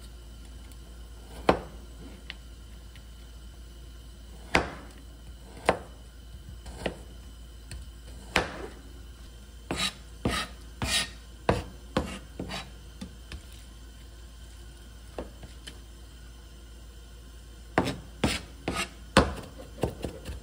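Chef's knife slicing garlic cloves on a cutting board, each cut ending in a sharp knock of the blade on the board. The strokes come one at a time at first, then in quicker runs of chopping, the last near the end as the garlic is minced.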